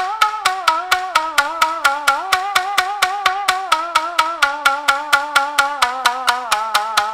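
Background music: a sharp wood-block-like click a little over four times a second under a slow, wavering sustained melody that drifts gradually lower in pitch.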